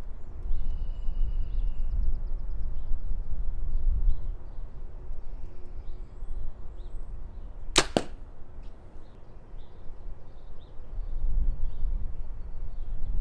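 A compound bow fires as the string is let go by a Carter Wise Choice thumb-trigger release: two sharp cracks a split second apart, about eight seconds in. A steady low wind rumble on the microphone runs beneath.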